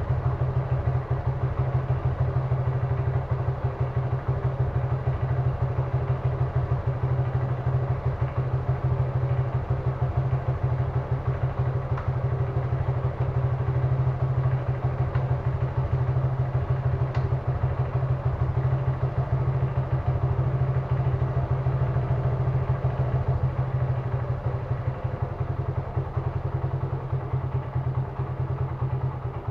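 Suzuki Gixxer's single-cylinder motorcycle engine idling steadily.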